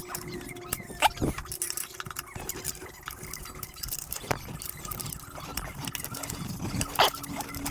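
Small metal clicks, scrapes and brief squeaks of tools working a snap ring out of a 4L60 automatic transmission during teardown.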